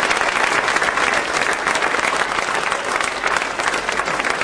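Audience applauding: dense clapping that slowly thins out toward the end.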